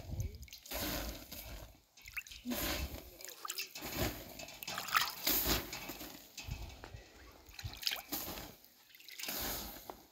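Liquid sloshing and splashing in short irregular bursts, with a few brief drips or ticks between them.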